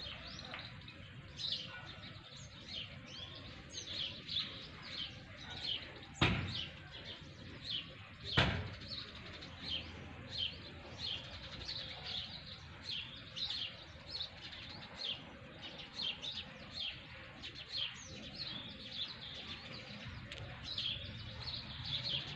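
Small birds chirping over and over in short, falling chirps. Two sharp knocks about two seconds apart stand out near the middle.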